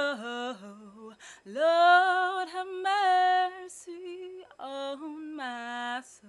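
A woman singing solo without accompaniment, in a few long held phrases with short breaths between them, her voice stopping just before the end.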